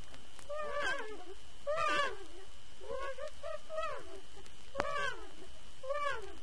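A young child's high voice in short syllables that rise and fall in pitch, about six of them, over the steady hiss of an old 1955 record.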